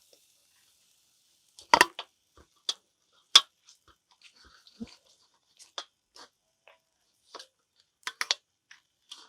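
Scattered sharp clicks and knocks of cooking tongs against the grill and pan as pieces of grilled rabbit are lifted off and set into a pan of barbecue sauce. The loudest knocks come about two and three and a half seconds in, with a quick run of three near the end.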